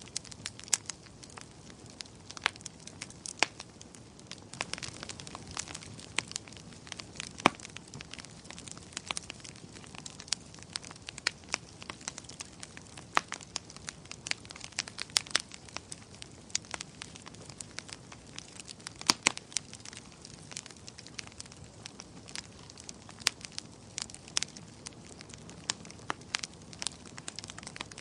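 Bonfire burning with a steady low hiss and frequent sharp, irregular crackles and pops of burning wood.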